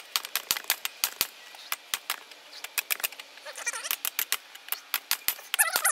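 Rapid hammer blows on red-hot leaf-spring steel laid over the sharp edge of a steel block anvil, about three to four ringing strikes a second: a hot cut to nick off the end of the bar. A short warbling call sounds twice, about halfway through and near the end.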